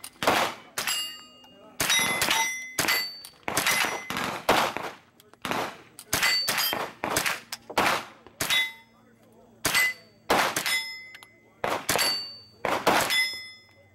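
AR-style rifle fired one shot at a time in quick succession, roughly one to two shots a second, each shot followed by the ringing ping of steel plate targets being hit.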